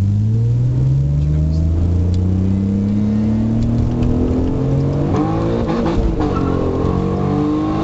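Supercharged 3.0 V6 of an Alfa Romeo 156, heard from inside the cabin, accelerating hard with the revs climbing steadily. About five seconds in it changes gear and the revs climb again.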